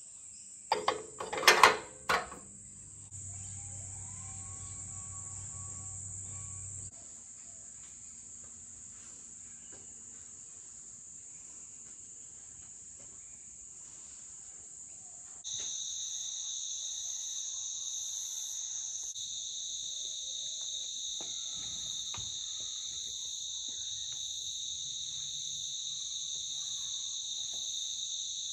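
Steady high-pitched trill of insects in the background, stepping up in loudness about halfway through. A few sharp clicks and knocks, the loudest sounds, come about one to two seconds in.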